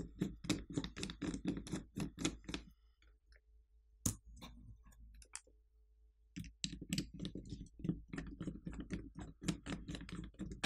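A screwdriver backing out two small Phillips screws from a smartphone's screen-cable cover plate, making rapid clicking at about five clicks a second. There are two runs of clicks, one per screw, with a short pause between them.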